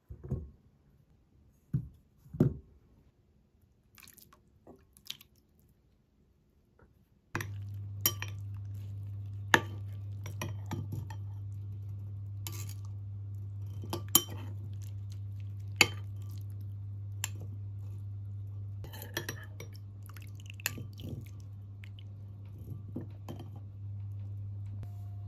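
A few knocks as a sweet potato is set down into a rice cooker's inner pot. Then a metal spoon scoops rum-soaked raisins, clinking and scraping many times against a glass bowl and a stainless mesh strainer, over a steady low hum.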